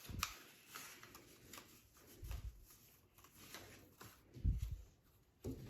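Colour paper rustling as cardboard toilet paper rolls are handled and wrapped, with scattered light taps and a few dull knocks.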